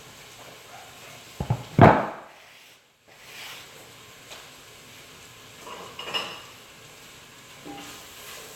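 Kitchen cooking sounds: food sizzling softly in a pot, with two loud knocks of a utensil or pan about one and a half to two seconds in and lighter clatters later.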